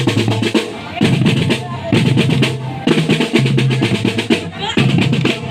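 Marching drum band playing: fast snare drum strokes and rolls over booming bass drum beats, in a repeating pattern of phrases about two seconds long.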